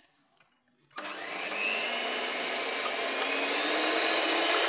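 Electric hand mixer switched on about a second in and running steadily, its beaters beating eggs, sugar and melted butter in a glass bowl.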